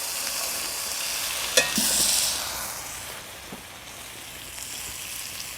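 Flat iron steak sizzling in a hot cast-iron pan, with a sharp tap about one and a half seconds in; the sizzle swells briefly around two seconds and then settles to a quieter, steady sizzle.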